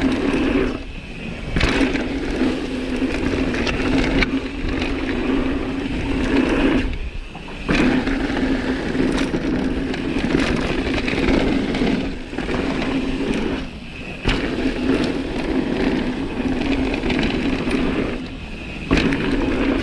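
Mountain bike coasting fast down a dirt trail: the rear freehub gives a steady, even buzz, which cuts out briefly five times, over tyre rumble and knocks from the rough ground.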